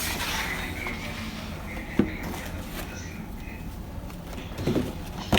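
A single sharp knock about two seconds in, over steady low room noise, then a couple of softer knocks near the end.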